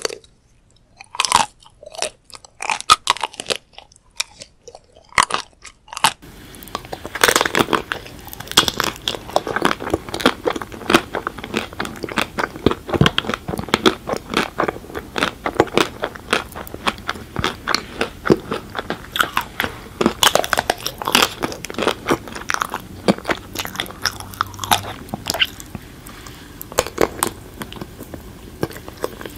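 Close-miked biting and chewing of chocolate-coated ice cream bars: the hard chocolate shell cracks and crunches in quick, irregular snaps with each bite, between softer chewing. About six seconds in, a steady background hiss comes in under the crunching.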